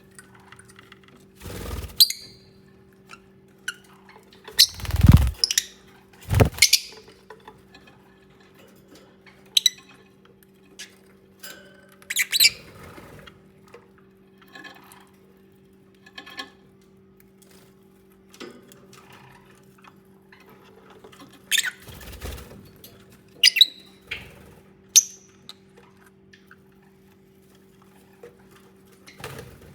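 Lovebirds giving short, sharp chirps and squawks in scattered bursts, with several dull thumps in between, the loudest about five seconds in. A steady low hum runs underneath.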